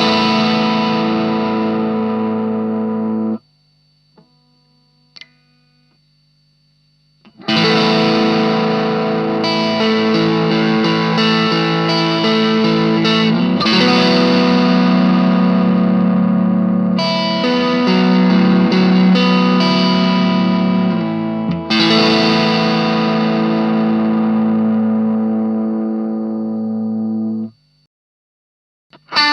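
Electric guitar chords through an Ibanez Tube Screamer Mini overdrive pedal into a small Marshall MG15 amp: overdriven chords left to ring, cut short about three seconds in. After a few seconds of faint amp hum, a new run of chords is struck and held, a fresh chord every few seconds, and it is cut off near the end.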